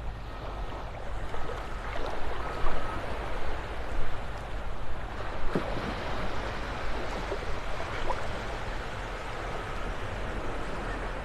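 Steady surf washing on the shore, with a vehicle's reversing beeper sounding in short, evenly spaced beeps over the first few seconds and again near the end, and a few brief knocks in between.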